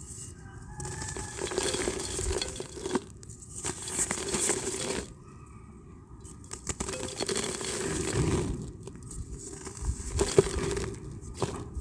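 Dry multani mitti (clay dirt) being crushed by hand, crackling and crunching, with grains and dust pouring into a clay pot. It comes in bouts, with a lull about halfway through.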